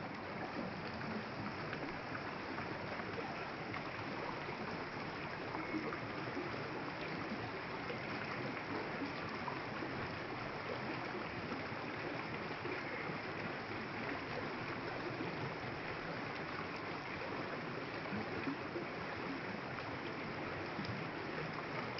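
Running water of a stream, a steady even rush.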